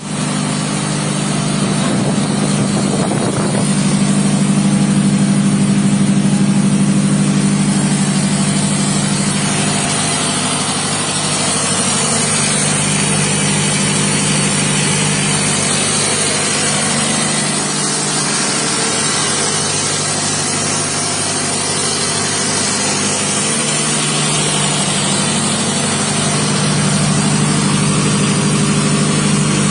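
Diesel generator set running steadily, a constant engine hum with little change in pitch.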